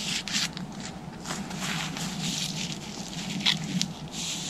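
Rustling and scraping as a recurve bow and a pack's fabric and straps are handled over dry fallen leaves, with a sharper click about three and a half seconds in.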